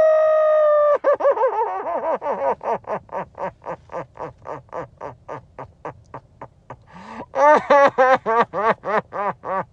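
A man's voice: a long held high cry that breaks off about a second in into a rapid cackling run of short pulses, about five a second and fading, then louder cackling near the end.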